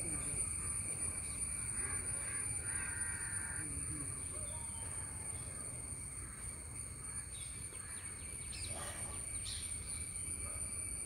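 Crow cawing a few times, mostly in the second half, over outdoor background with a steady high-pitched whine.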